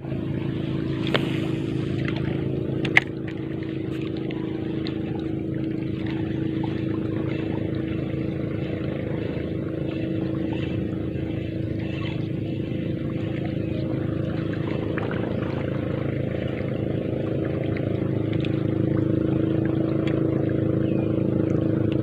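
A motorboat engine running at a steady pitch, growing slightly louder toward the end, with a few sharp clicks in the first few seconds.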